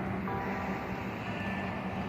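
Church bells ringing: a bell note is struck about a quarter second in and a higher note past halfway, each ringing on over a steady low rumble.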